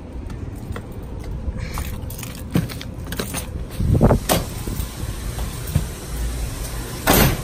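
A back service door being opened and walked through, with scattered clicks and knocks, a heavier thump about four seconds in, and a short loud rush of noise near the end.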